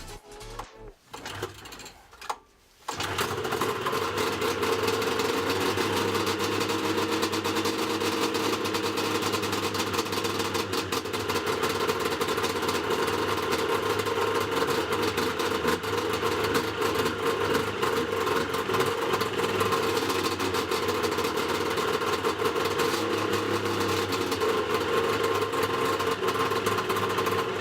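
Yamaha Mountain Max 700 snowmobile's three-cylinder two-stroke engine idling through aftermarket SLP triple expansion-chamber pipes, a steady fast rattling idle that starts about three seconds in.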